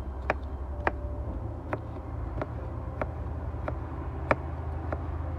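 Sharp, regular taps, about one every two-thirds of a second, over a steady low hum.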